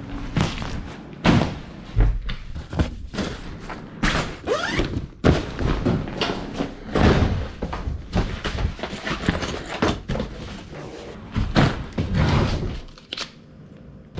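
Camping bags and gear being handled: a run of thuds and knocks with rustling fabric, and a backpack zipper pulled about four and a half seconds in.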